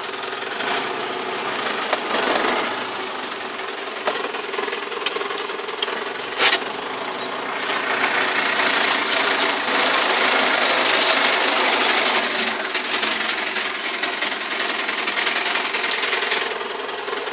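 Belarus 920 tractor's diesel engine running steadily under load while pulling a plough, with rattles. There is a sharp knock about six and a half seconds in, and a louder hiss from about eight seconds in that drops away near the end.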